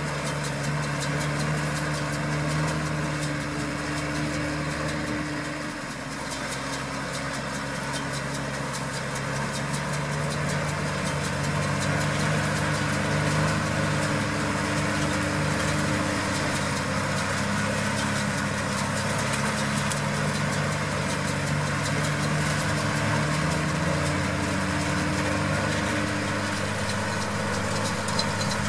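Case IH Maxxum 125 tractor's engine running steadily while baling with a Case IH RB 344 round baler; its pitch shifts slightly about six seconds in and again around ten seconds.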